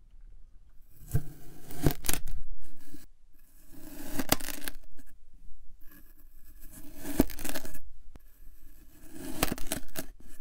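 A knife slicing down through packed kinetic sand four times, each cut a gritty, crunchy scrape with a few sharp clicks, with short pauses between the cuts.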